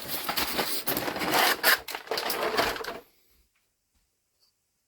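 Plastic toy packaging crackling and clicking as action figures and accessories are pulled out of their box trays; it cuts off suddenly about three seconds in.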